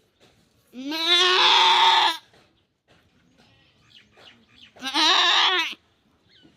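A goat bleating twice: two long, loud, wavering calls about three seconds apart.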